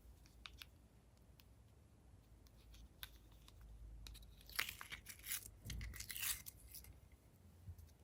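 Crackling, tearing handling noise with scattered small clicks, rising to a cluster of louder crackles about halfway through.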